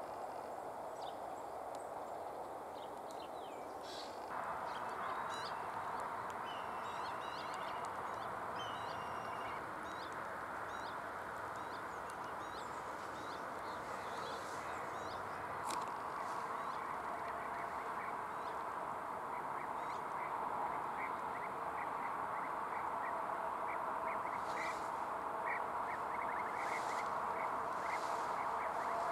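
Short bird calls over a steady background hiss; in the last third a run of short, rapidly repeated calls of European bee-eaters.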